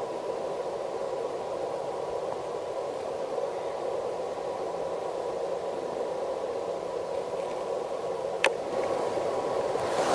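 Steady hiss with a faint constant tone in it, broken by a single sharp click about eight and a half seconds in; near the end the hiss grows a little louder as the camera is handled.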